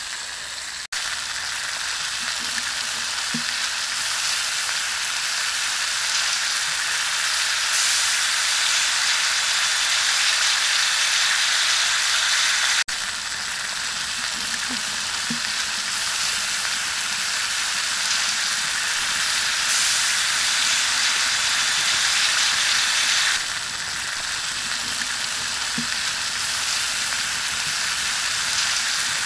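Sauce-basted pork ribs sizzling on a hot stone slab over a wood fire, a steady hiss that briefly drops out about a second in and again midway.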